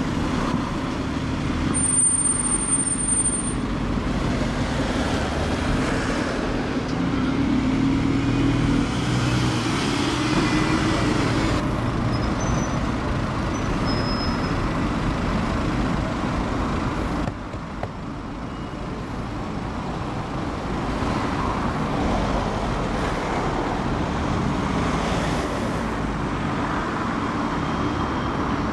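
Road traffic with a single-deck bus passing close by, its engine pitch rising as it pulls away, then cars going by in a steady traffic hum.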